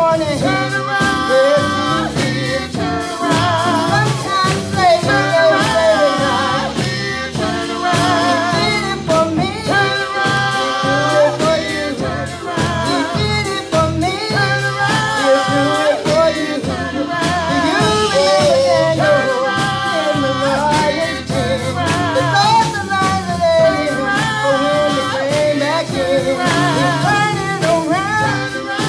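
Gospel worship singing by singers on microphones, amplified through the church sound system, with wavering vibrato on held notes.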